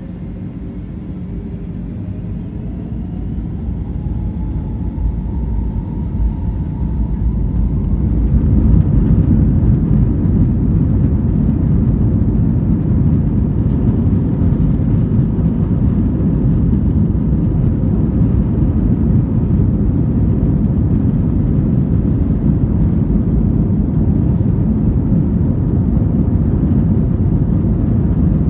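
Airbus A321 jet engines spooling up to takeoff thrust, heard from inside the cabin. A rising whine climbs over the first eight seconds or so, then a loud, steady rumble continues as the takeoff roll gathers speed.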